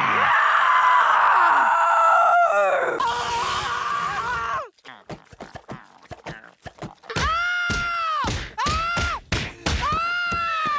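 Animated cartoon voices: loud shared yelling for about three seconds, then, after a quieter stretch with a few clicks, a run of drawn-out groaning cries, each rising and falling in pitch.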